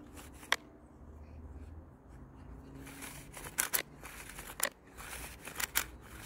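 Plastic clicks and rattles from a chainsaw's recoil-starter cover, starter rope and grip being handled and fitted. One sharp click comes about half a second in, then a few quick clusters of clicks in the second half.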